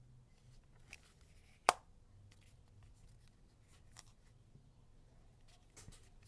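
A few faint, short clicks of a Samsung SGH-C266 flip phone being handled and its keys pressed, with one sharper, louder click about a second and a half in; no ringtone is playing.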